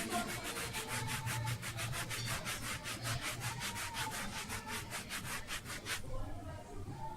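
Fingers rubbing quickly back and forth on a Remax Singsong K mini microphone, a rub test heard through the mic itself. It makes an even, scratchy stroking about five or six times a second and stops about six seconds in.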